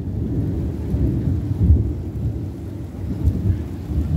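Thunder rumbling low and rolling, in several swells, during a thunderstorm with rain.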